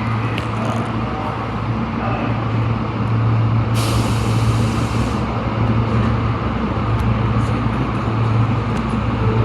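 Tanimachi Line subway car 22618 running, a steady rumble with a low hum, and a burst of air hiss lasting about a second and a half near the middle.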